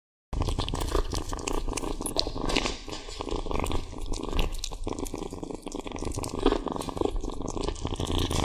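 Kitten purring steadily while licking and chewing raw steak, with many small wet clicks of mouth and tongue on the meat.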